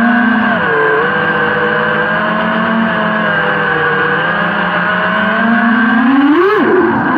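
FPV quadcopter's brushless motors and propellers whining at a steady cruising throttle, the pitch drifting gently. About six seconds in the whine rises sharply, then swoops up and down as the throttle changes.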